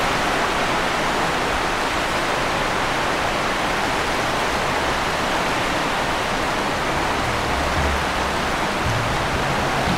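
A steady, even hiss, with a faint low rumble briefly near the end.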